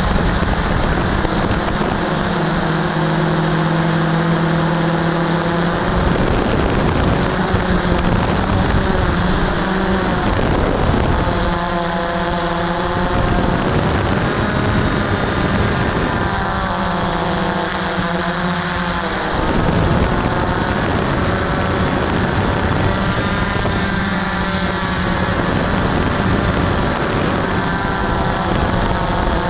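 Camera drone's motors and propellers whining steadily, heard close up from the drone itself, the pitch wavering up and down a few times as the motors speed up and slow while it manoeuvres.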